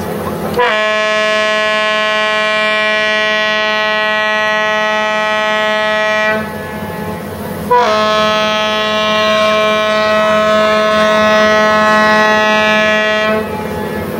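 Fireboat John J. Harvey's horn sounding two long blasts of about five and a half seconds each, a second and a half apart, each starting with a brief rise in pitch. A steady low drone runs underneath.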